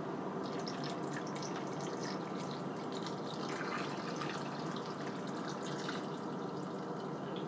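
Water pouring steadily from a plastic pitcher into a pot of potato chunks, splashing and trickling.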